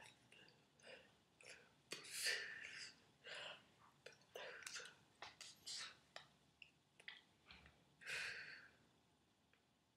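Faint whispery breath and mouth sounds from a person signing, in short irregular puffs with a few small sharp clicks.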